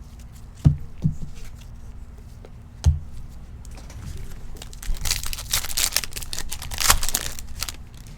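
A few soft thumps, then a foil trading-card pack wrapper being torn open and crinkled for a couple of seconds, starting about five seconds in.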